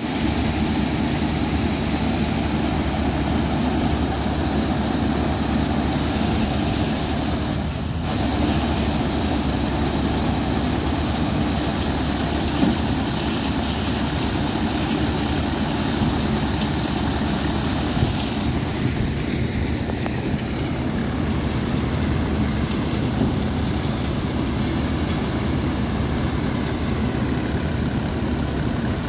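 Farm harvest machinery running steadily, a dense, constant engine drone, which changes suddenly about eight seconds in and again about nineteen seconds in.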